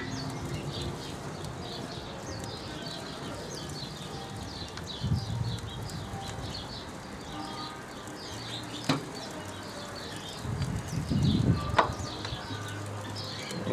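Wind buffeting the microphone, with small birds chirping in the background and two sharp clicks, about nine and twelve seconds in.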